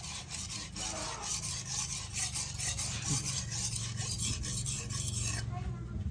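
Steel knife blade rubbed back and forth against an abrasive (file or sharpening stone), in quick scraping strokes about three a second that stop near the end, over a steady low hum.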